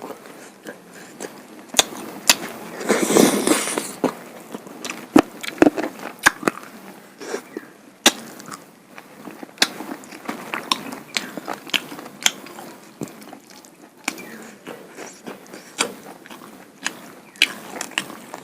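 Close-miked eating sounds: chewing with wet lip smacks and sharp, irregular mouth clicks, as duck meat and rice-flour pitha are eaten. A longer, louder noise comes about three seconds in.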